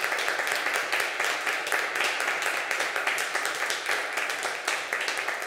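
Small audience applauding: dense, steady clapping of many hands.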